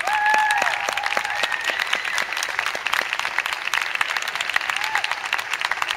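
Audience applauding at the end of a figure-skating performance, many hands clapping, with a few high cheering calls in the first two seconds.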